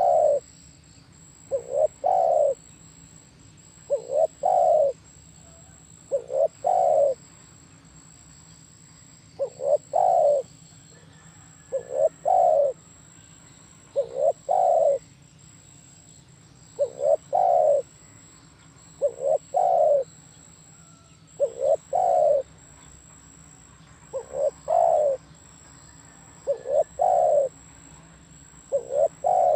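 Spotted dove cooing: a phrase of a couple of quick short notes and a longer coo, repeated about every two seconds, with one slightly longer pause.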